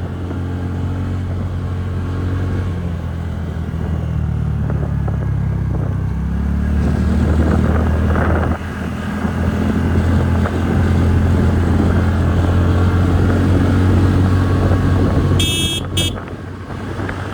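TVS Ntorq 125 scooter's single-cylinder engine running under load on a hill road, rising in pitch as it picks up speed a couple of seconds in and again around six seconds. A short horn beep sounds near the end.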